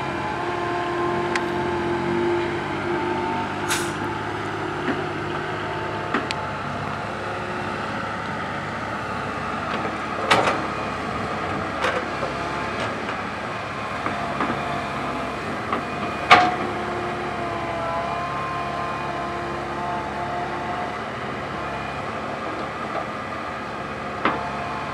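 Komatsu PC130 hydraulic excavator's diesel engine running under load, its hydraulic whine rising and falling as the boom and bucket dig, swing and dump. Scattered sharp clanks of the bucket and rocks, the loudest about 16 seconds in and another about 10 seconds in.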